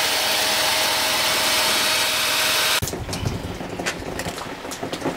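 Electric drill spinning the flywheel of a 1963 Johnson 5½ hp two-stroke outboard to crank it over for a start attempt, a steady whine that cuts off suddenly about three seconds in. A few clicks and knocks follow as the drill is handled.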